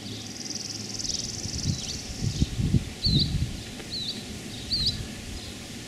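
Small birds singing: a high buzzy trill for about two seconds, then short chirps repeated about once a second. Low thumps and rustles come a couple of seconds in.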